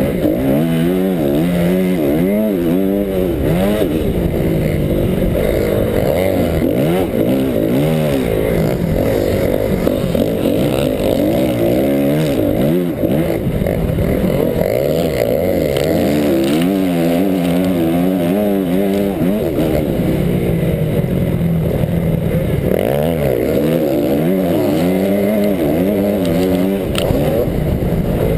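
Motocross bike engine revving hard and dropping back over and over, its pitch rising and falling every second or two as the rider accelerates, shifts and brakes through corners.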